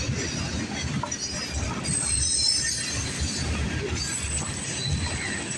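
CSX freight train rumbling past, with thin high-pitched steel wheel squeal that is strongest a couple of seconds in, mixed with footsteps crunching on gravel ballast.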